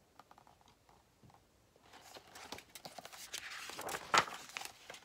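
Pages of a hardcover picture book being turned by hand: faint light clicks, then a paper rustle that builds through the second half, with a sharp flap of the page a little after four seconds in.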